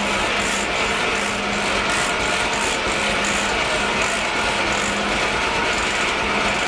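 Steam-powered sawmill running with a steady hum, while the carriage setworks ratchet clicks in a quick, even rhythm as the log is set over for the next board cut on the circular saw.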